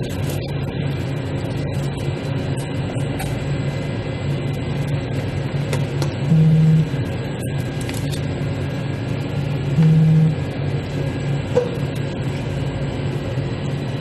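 Steady low machine hum, with two short, louder low buzzes about six and ten seconds in.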